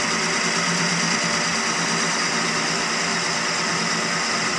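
Centre lathe running with a steady hum and a high whine while turning the outer diameter of a mild steel bush blank.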